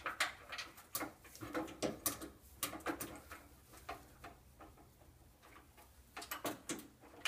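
Irregular light metal clicks and taps as an ignition coil, its bracket and a washer are fiddled into place against Porsche 356/912 engine tin by gloved hands.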